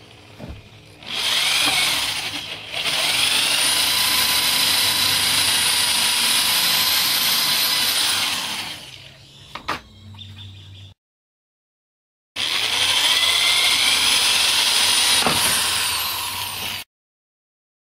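Handheld electric drill running at full speed with its bit boring into a plastic car side skirt: a short burst, then a long steady run with a high whine, and after a break a second run that winds down near the end.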